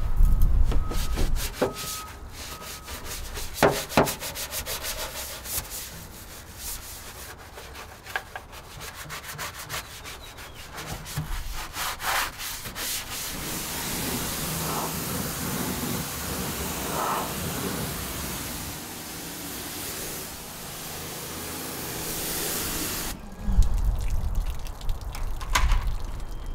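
A stiff brush scrubbing the bare metal floor of a Jeep's stripped interior, a dense rasping rub, followed by several seconds of steady hissing spray as the floor is washed. A few low thuds come near the end.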